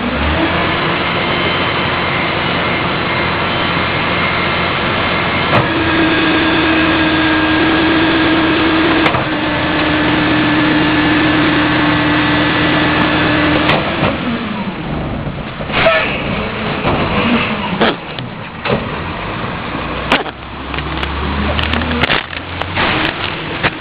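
Heil 5000 rear-loader garbage truck working its packer: the engine runs at raised revs, and a steady hydraulic whine joins it about five seconds in. Both fall away about fourteen seconds in, and several sharp clanks follow. Near the end the engine picks up again briefly.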